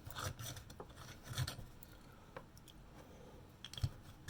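Hand scraping and rubbing on an espresso machine boiler cap as old O-ring rubber residue is worked off, several short strokes in the first second and a half, then fainter, with a couple of small clicks.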